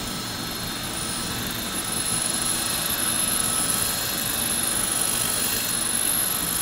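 Hammer drill running steadily in plain rotary mode, a glass bit grinding into ceramic tile, with a steady high whine.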